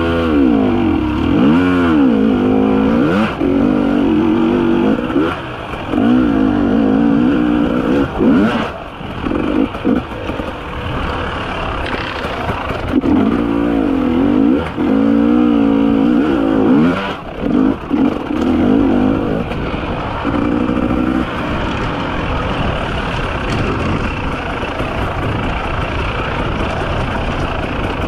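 Two-stroke 300 cc enduro motorcycle engine revving up and down over and over as the throttle is worked on a rough dirt trail, with a few brief drops as the throttle is closed; it runs steadier toward the end.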